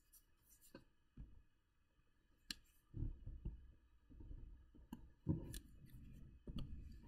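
Faint taps and clicks of a stylus on a touchscreen as a line is drawn along an on-screen ruler, with soft low bumps of handling noise in the second half.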